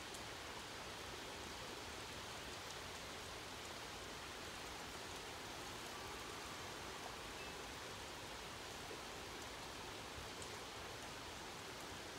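Steady rain falling, an even hiss of drops that does not let up.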